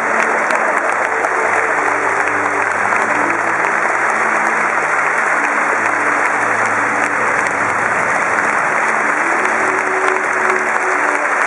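A large audience applauds steadily throughout, a dense patter of many hands. Music plays underneath in slow, held low notes that change every second or two.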